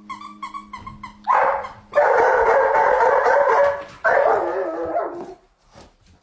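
A dog yipping in a quick run of short high yelps, then letting out two long, loud howling cries, the second dropping in pitch as it ends.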